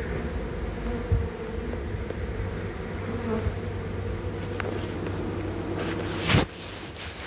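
Honeybees of a swarm being hived buzzing steadily around the hive and sheet, a continuous humming drone. A short, loud burst of noise comes near the end.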